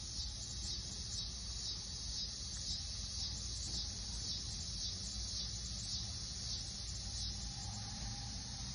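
Insects chirping high-pitched in an even, pulsing rhythm of about two to three pulses a second, over a low steady rumble.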